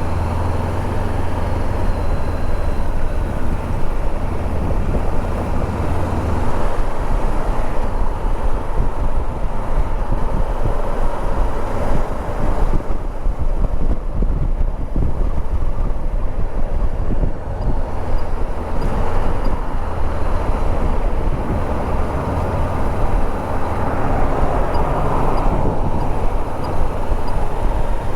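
2014 Honda CB500X's parallel-twin engine running as the motorcycle rides in traffic, with wind and road noise. The low engine hum fades for several seconds in the middle and returns.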